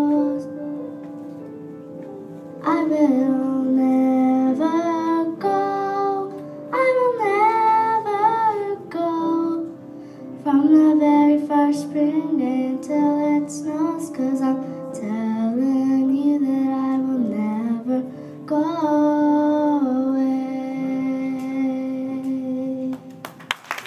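A young girl singing a slow love song into a microphone over backing music, holding long notes that slide between pitches. Applause breaks out right at the end.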